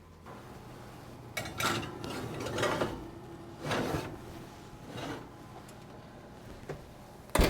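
Kitchen handling sounds of a baking pan being put into an oven: several scraping and sliding sounds, then one sharp knock near the end as the oven door shuts.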